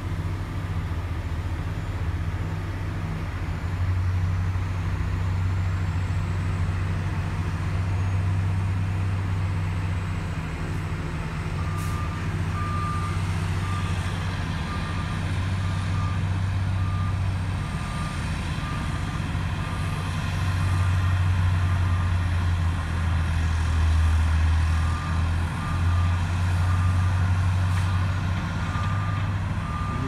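Heavy diesel machinery running steadily: a cold milling machine and its support trucks at work on the asphalt. After about twelve seconds a vehicle's backup alarm starts beeping repeatedly, a high steady beep over the engine drone.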